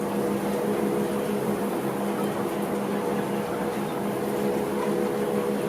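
Chicken house ventilation and climate-control equipment running with a steady hum and a constant low tone.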